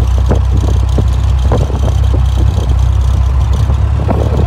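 Classic Land Rover's engine running with a steady low drone, heard from inside the cab, with the body knocking and rattling now and then as it drives over rough, rocky ground.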